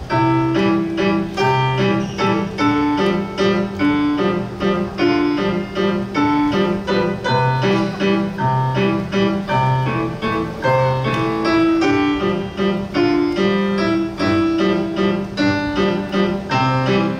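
Solo piano playing a brisk piece, a steady pattern of bass notes and chords under a higher melody.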